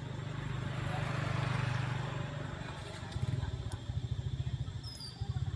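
Motorcycle engines on the road: one passes by, loudest about a second and a half in, then from about halfway through a small motorcycle engine idles with a rapid, even low putter.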